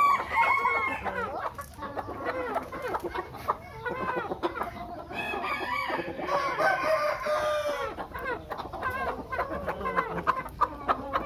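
Nanicão chickens clucking steadily, with a rooster crowing once in a long call about halfway through.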